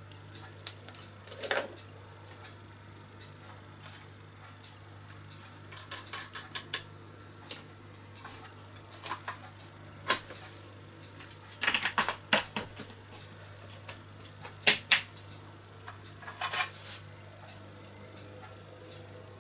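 Irregular metallic clicks and clatters as the parts of a small 1929 Meccano model steam engine are handled and set in place, some single, some in quick bunches, the loudest a little past the middle, over a low steady hum.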